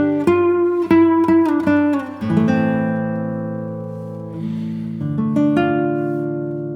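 Background music on acoustic guitar. Quick plucked notes come first, then held chords ring and slowly fade, with a new chord struck about five seconds in.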